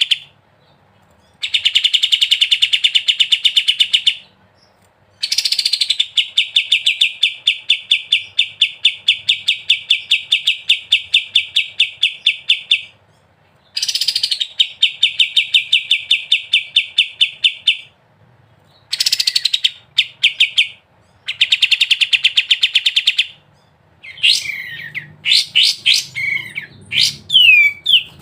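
Kapas tembak songbird singing in long bursts of very rapid, evenly repeated notes (the "ngebren" trill), each burst lasting several seconds with short pauses between. Near the end the bird switches to varied, gliding whistled phrases.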